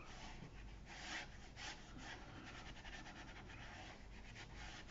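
Faint, repeated soft swishes of a round watercolour brush stroked across textured watercolour paper, wetting it all over with clean water ahead of a wet-in-wet sky wash.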